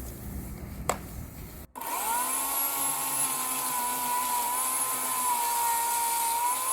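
Oregon CS1500 corded electric chainsaw: a single sharp click about a second in, then the motor running with a steady high whine as the chain cuts down into a damp, dead palm trunk.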